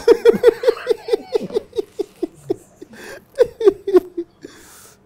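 A man laughing: a long, fast run of 'ha' pulses, about six a second, that trails off after about four seconds.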